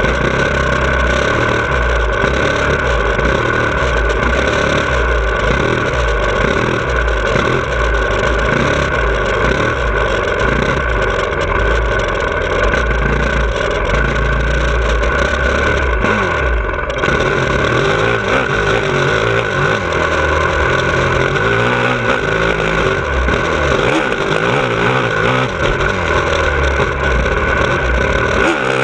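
2017 Honda CRF450R's 450 cc single-cylinder four-stroke engine revving hard and falling back over and over as the bike is ridden around a motocross track, the pitch rising and falling without a break. The engine drops off briefly a little past halfway before pulling again.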